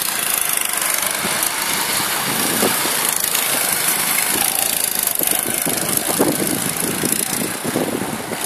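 Go-kart engines running as karts pass along the track close by.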